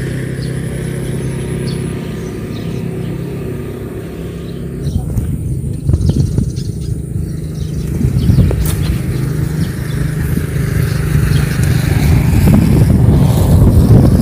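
A small engine running steadily, with wind buffeting the microphone; the rumble grows louder from about five seconds in.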